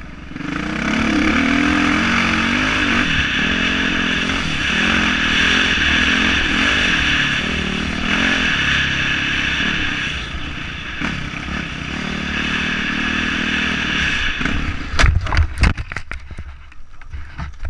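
A 2006 Yamaha YZ450F's single-cylinder four-stroke engine revving up and down as the dirt bike is ridden along a trail. About fifteen seconds in, a burst of loud impacts and clattering comes as it hits another dirt bike head-on and crashes.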